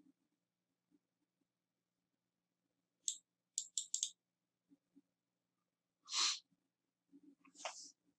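Quiet computer mouse clicks: a single click, then three in quick succession. A couple of seconds later comes a short breathy hiss, like a breath through the nose, and a fainter one near the end.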